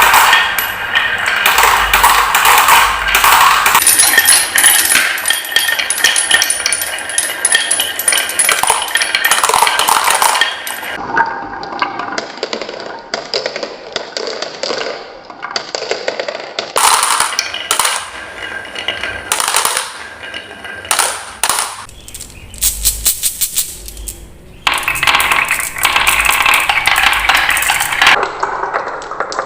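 Marbles rolling and clattering down wooden marble-run tracks, with dense clicks, knocks and ringing tones. About two-thirds through, a quick even run of clicks, then heavy clattering again near the end.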